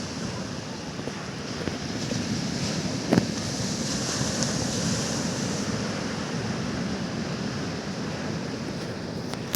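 Sea surf washing in steadily, with a wave swelling a little louder around the middle, and wind on the microphone. A single brief knock about three seconds in.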